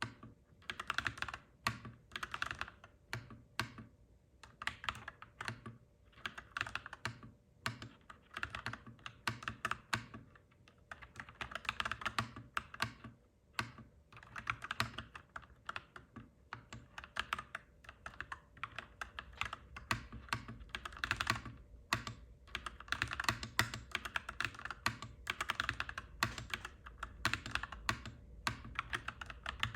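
Fast typing on a clacky mechanical keyboard: runs of sharp key clacks lasting a second or two, broken by short pauses. A low background rumble grows louder about two-thirds of the way through.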